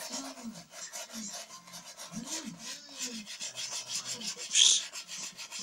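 A cloth rubbing black shoe polish into a leather shoe in quick, regular back-and-forth strokes, a dry scratchy swishing. One stroke about four and a half seconds in is briefly louder and hissier.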